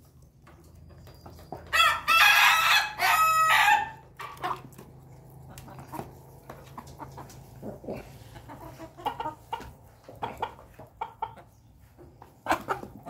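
A rooster crows once, loud, for about two seconds starting about two seconds in, the call breaking briefly halfway through. Afterwards, softer chicken clucks and scattered short pecking clicks.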